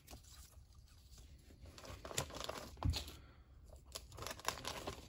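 Paper insert cards and clear plastic packaging bags handled in and out of a cardboard box: soft rustling and crinkling that gets busier in the second half, with a couple of sharp clicks around the middle.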